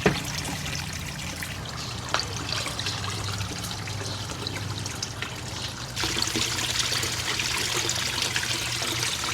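Water from a pond pump trickling and splashing into a goldfish tank, with a couple of faint knocks early on. About six seconds in the splashing gets louder and brighter.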